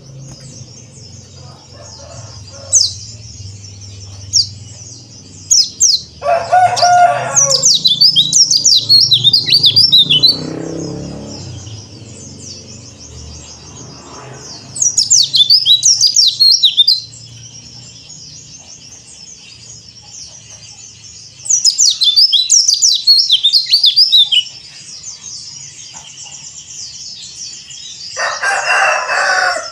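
Yellow-breasted white-eye (pleci dakun Bali) singing in bursts of rapid, high twittering chirps, each burst two to three seconds long, with single chirps between them. A lower, rougher call cuts in twice, about six seconds in and near the end.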